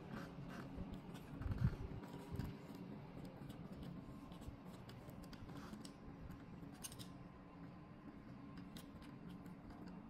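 A screw being turned by hand with a thin tool into the top of a folding-door lever handle: faint scattered metallic clicks and light scraping, with a few soft knocks in the first two and a half seconds.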